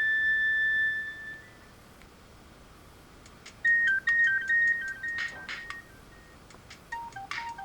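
Sony Ericsson Z200 mobile phone playing its built-in ringtones through its small speaker. A held electronic note fades out over the first second and a half. After a short pause a new ringtone starts with quick high beeping notes and noisy percussive hits, moving to lower notes near the end.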